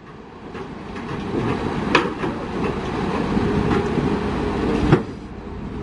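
Heavy diesel construction machinery running, growing louder, with two sharp metallic knocks, one about two seconds in and one near the end.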